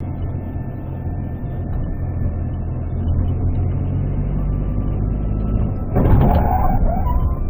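A car driving slowly in city traffic, heard from inside the cabin through a dashcam: a steady low engine and road hum. About six seconds in comes a sudden louder, harsher burst of noise with some wavering tones.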